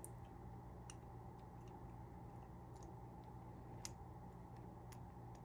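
Faint, scattered small clicks of a screwdriver and metal parts as the barrel screw is turned into a Crosman 157 air pistol's air chamber, the clearest about four seconds in, over a low steady hum of room tone.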